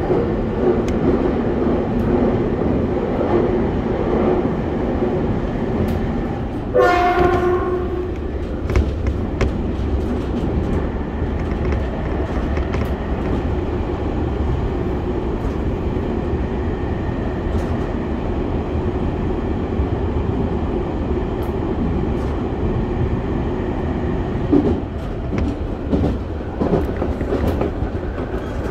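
Keio 1000 series electric train running through a tunnel, heard from inside the front car: a steady rumble with scattered clicks of the wheels on the rails. About seven seconds in, a train horn gives one short blast.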